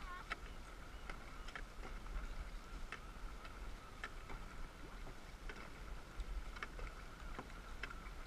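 Dragon boat paddles working in unison: sharp knocks from the strokes, about one a second, over a steady low rush of water and wind.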